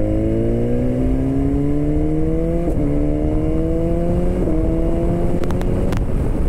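BMW S1000XR's inline-four engine running through a decatted exhaust with the catalytic converter removed, accelerating: the engine note climbs steadily in pitch and drops briefly twice, about three and four and a half seconds in, as it shifts up. Near the end the climb levels off and fades. Wind noise runs underneath.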